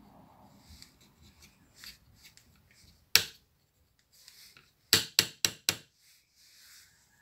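Finger taps on the front panel of a Philips reel-to-reel tape recorder: one sharp tap, then four quick taps about a quarter-second apart, over faint rubbing and handling noise.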